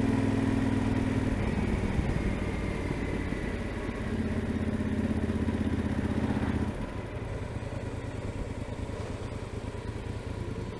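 Yamaha Super Tenere XT1200ZE parallel-twin engine running through a freshly fitted Delkevic 343 mm carbon-tipped exhaust while the bike is ridden. The note is louder for a few seconds in the middle, then drops to a quieter run for the rest.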